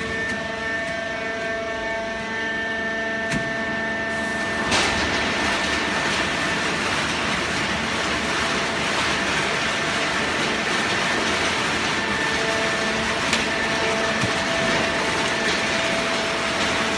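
Hydraulic waste paper baling press running with a steady whine of several held tones; about five seconds in, a louder even noise joins and carries on.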